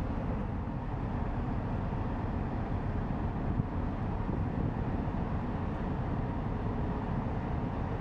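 Low, steady rumble of a passing inland cargo vessel's diesel engine, with a few faint steady tones above it and no sudden events.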